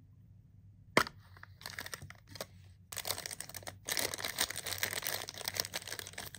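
A hard plastic toy case snaps open with one sharp click about a second in, followed by the crinkling of a thin clear plastic bag being handled around a small toy figure.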